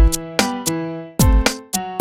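Electronic intro music with a beat: deep kick-drum hits that slide down in pitch, crisp percussion strokes and held keyboard notes.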